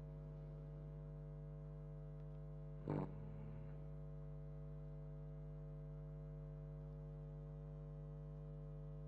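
Steady low electrical hum from the recording setup. About three seconds in there is one brief, louder sound lasting under a second.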